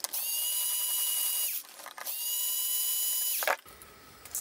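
Cordless power screwdriver motor whining in two runs of about a second and a half each, at a steady pitch that drops as the motor stops, with a few clicks between the runs, as it backs out module cover screws.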